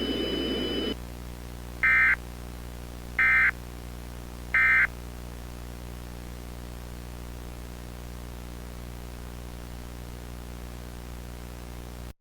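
EAS end-of-message data bursts: three short, identical, screechy digital warbles a little over a second apart, starting about two seconds in, which mark the close of the alert. Underneath is a steady low hum.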